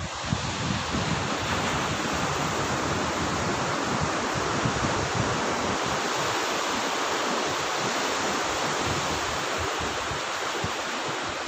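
Ocean surf breaking and washing on a sandy beach, a steady roar of waves, with wind buffeting the microphone.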